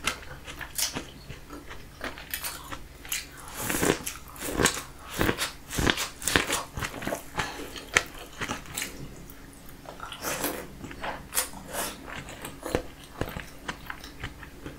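Close-up eating sounds from sauce-drenched king crab meat and corn: wet chewing, lip-smacking and biting in quick, irregular smacks and clicks.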